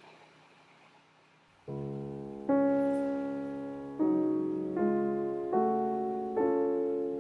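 Background piano music: slow, gentle chords, each left to ring and fade before the next, starting about two seconds in after faint room noise.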